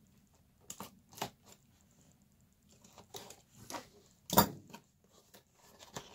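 A utility knife blade scraping and slicing the tape seal on a cardboard toy box, then the cardboard-and-plastic window box being handled. Scattered short clicks and scrapes, the loudest a little over four seconds in.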